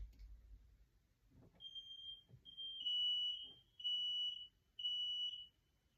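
Smoke alarms beeping faintly, a high beep about once a second, four times, with two slightly different pitches overlapping in places.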